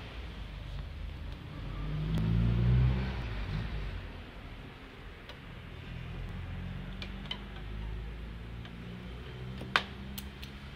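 A passing car's engine, rising to its loudest about two to three seconds in and then fading into a steady low traffic rumble. A single sharp click near the end.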